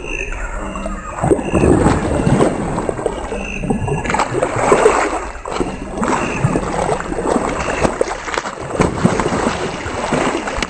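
Water splashing and sloshing in a rapid, irregular series of splashes.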